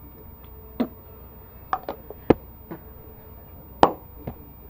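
Close handling noise: about half a dozen sharp clicks and knocks of hard plastic objects being handled, the loudest about halfway through and another near the end.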